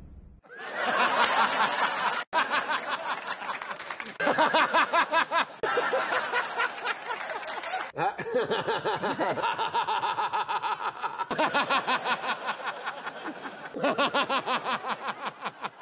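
A man laughing hard in long runs of quick, pulsing bursts. The laughter breaks off abruptly several times as one laugh is cut straight into the next.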